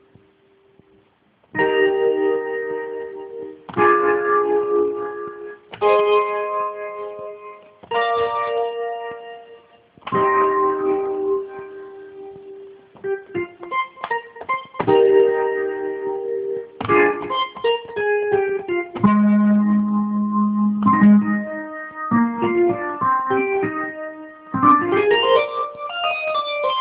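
Revival Rack Extension synth in Reason 6.5, played from a Launchpad grid controller as a MIDI keyboard: a series of held keyboard-like chords about two seconds apart, then faster melodic lines with a low held note, and a rising run near the end.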